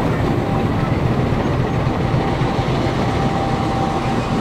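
Railway coaches rolling slowly past at close range during shunting: a steady low rumble with a faint steady whine held through most of the stretch.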